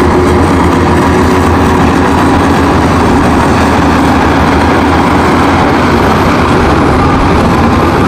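Shantui crawler bulldozer's diesel engine running loud and steady as the dozer pushes rock and soil with its blade.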